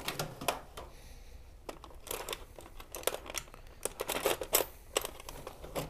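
Metal hood-strut bracket, bolts and hand tools being handled and adjusted: irregular clusters of sharp clicks and clinks, the loudest in the second half.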